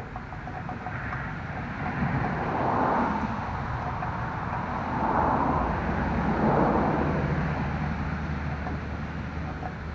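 Road vehicles passing by, their noise swelling and fading several times, with a low steady engine hum in the second half.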